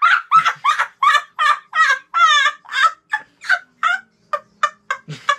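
A boy laughing hard in a long run of short, high-pitched cackles, about three a second, growing shorter and fainter toward the end.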